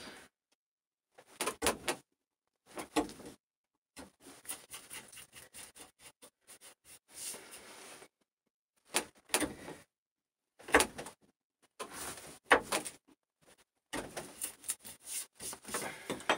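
Hand chisel work on a wooden post: a wide chisel set and rocked into knife lines across the grain, giving a series of sharp clicks and knocks with short scraping sounds between them.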